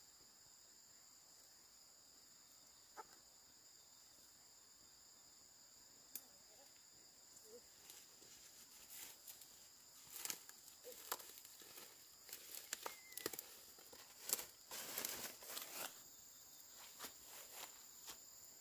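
Steady high-pitched insect chorus, with scattered light crackling and rustling clicks from about eight seconds in until near the end, thickest around fifteen seconds.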